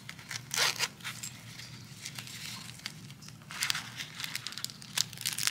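A small fabric zipper pouch being unzipped in short rasping pulls. Near the end comes a longer rustle as the nail foil sheets inside are handled.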